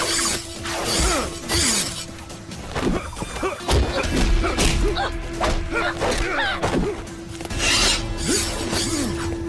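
Dramatic action music with a held note, under fight sound effects: whooshes of whirling yo-yo wires and several heavy hits.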